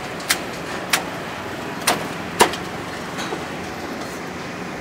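Steady street background noise with traffic, broken by four sharp knocks or clicks in the first two and a half seconds, the last the loudest.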